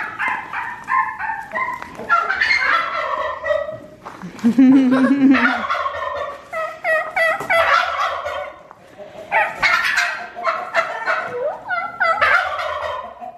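Tom turkeys gobbling over and over, in fast rattling bursts every two or three seconds, calls overlapping as the birds answer one another. About four and a half seconds in there is a short, loud low drone.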